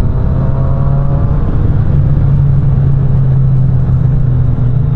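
Triumph Street Triple RS's three-cylinder engine running steadily while the motorcycle cruises at about 75 km/h, with its note dropping slightly about two seconds in, under a steady rush of wind noise.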